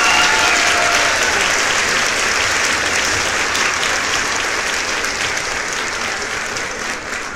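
Crowd applauding and clapping, with a brief whistle at the start, slowly fading out.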